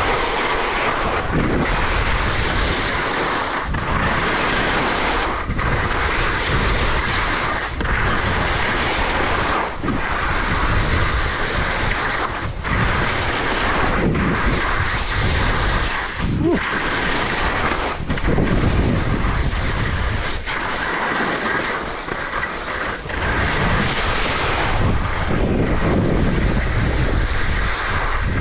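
Wind rushing over the microphone and skis scraping and hissing over chopped-up spring snow during a downhill run. The noise dips briefly every second or two as the turns link.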